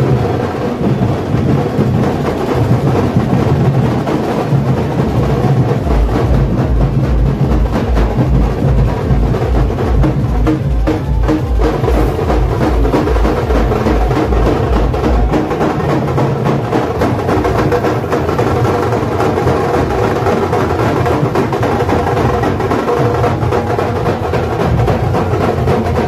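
Loud drumming with music. From about six seconds in to about fifteen seconds in, a deep bass beat repeats steadily, about three times a second.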